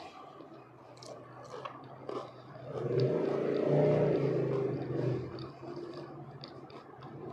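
A motor vehicle's engine passing by, swelling to its loudest around the middle and fading again. Soft chewing clicks from crispy fried potatoes run over it.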